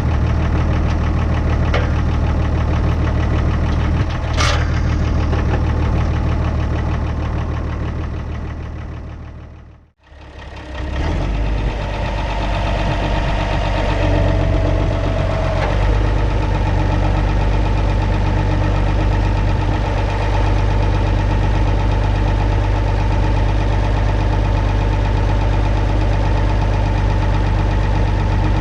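International TD6 crawler's diesel engine running steadily at a low idle, with a single sharp clank about four seconds in. The sound fades out and back in about ten seconds in.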